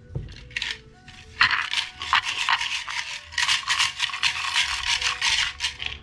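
Hexagonal wooden omikuji box being shaken, its fortune sticks rattling against the wood inside in a dense run of clicks that starts about a second and a half in and stops just before the end. Two lighter knocks of the box being handled come first.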